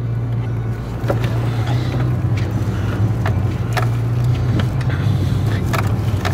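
Engine and road noise inside a moving car's cabin: a steady low drone that grows louder about a second in as the car pulls away. A few scattered light clicks or knocks sound over it.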